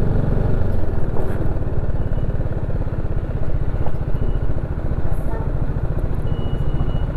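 TVS Apache RR 310's single-cylinder engine idling as the motorcycle coasts slowly to a stop. It settles about a second in from a light, steady throttle into an even, rapid idle thump.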